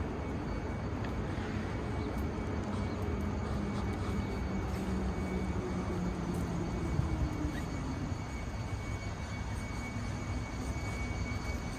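City street background noise with a low engine drone that slowly drops in pitch through the middle, as the engine passes by.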